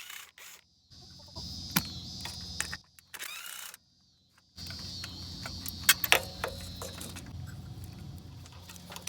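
Sharp metallic clicks and clinks of hand tools at work on a riding mower's engine parts, a few separate strikes, over a steady low hum and the chirping of crickets. The sound cuts out completely several times.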